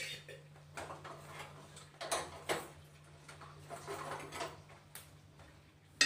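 An aluminium pressure cooker set down on a gas stove with a sharp knock, followed by scattered light taps and clicks of kitchen things being handled, over a faint steady low hum.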